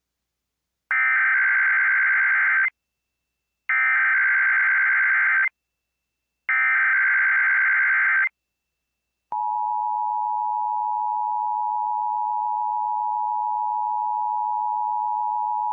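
Emergency Alert System signal opening a monthly test: three identical screechy digital SAME header bursts, each just under two seconds with about a second between them. After a second of silence comes the steady two-tone EAS attention signal, starting a little after nine seconds in and running on.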